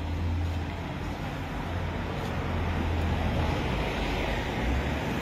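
Road traffic noise: a steady low hum of cars on a city street, with no distinct single event.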